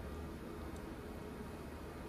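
Quiet room tone with a steady low hum, in a pause between spoken lines.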